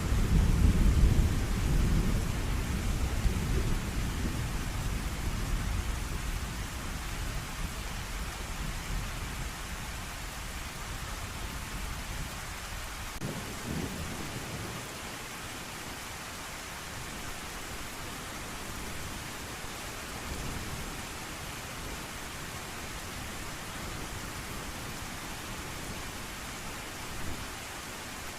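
Steady rain hissing, with a roll of thunder at the start that rumbles away and fades over about ten seconds; a short, fainter rumble comes about halfway through.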